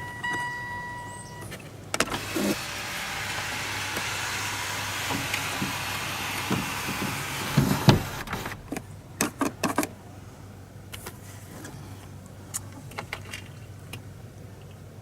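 Canned compressed air hissing steadily for about six seconds as it is blasted through a tube down a clogged sunroof drain, after a brief steady tone at the start; scattered clicks and knocks follow.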